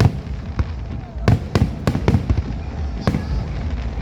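Fireworks display: a rapid string of bangs from aerial shells bursting, about ten in four seconds, over a continuous low rumble.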